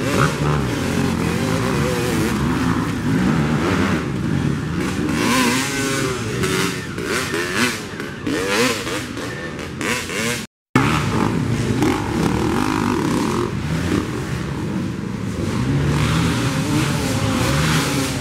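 Dirt bike engines revving hard and unevenly, pitch rising and falling, as they labour up a steep hill climb. The sound drops out completely for a moment about ten and a half seconds in.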